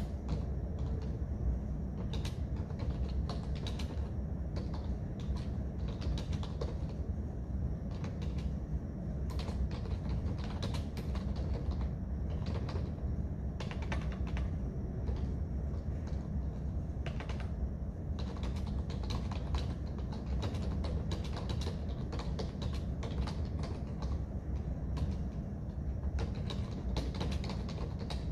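Typing on a computer keyboard: irregular key clicks, coming faster in the last third, over a steady low hum.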